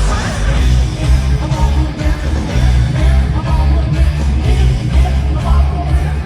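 Loud rock music with electric guitar over a heavy, pulsing bass.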